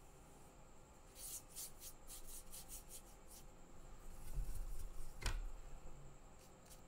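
Paintbrush rubbing over watercolour paper in a run of short scratchy strokes, about four a second, then a dull bump with a sharp click about five seconds in.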